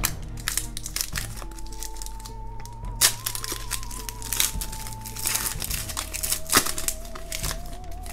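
Foil trading-card pack wrapper crinkling and being torn open by hand, with sharp crackles about three seconds in and again past six seconds. Soft background music with a held, wavering note plays underneath.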